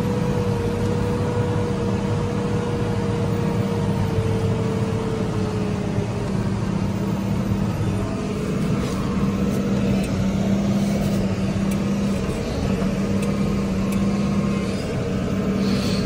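New Holland tractor's diesel engine running steadily under load, heard from inside the cab, while it pulls a baler across the field. A steady whine runs over the engine noise, sinks a little in pitch and fades out about six seconds in.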